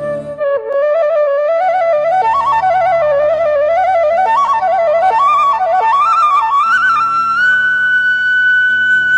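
Background music: a flute plays a stepwise melody that climbs and settles on a long held high note near the end, over a steady low accompaniment.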